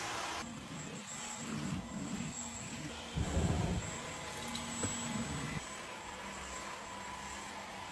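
Dyson cordless stick vacuum with a laser floor head running steadily: a rush of air with a thin high whine as it is pushed over hard floor and a rug. A few low thumps about three seconds in are the loudest moment.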